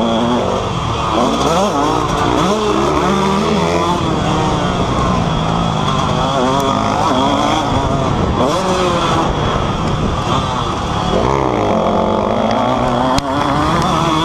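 KTM 125 SX two-stroke single-cylinder engine revving up and dropping back again and again as the rider accelerates and shifts gears. It is heard from on the bike. There is a sharp knock near the end.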